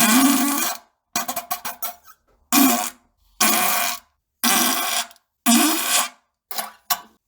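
A quick run of fart and poop sound effects, about seven or eight short blasts, each under a second and cut apart by dead silence.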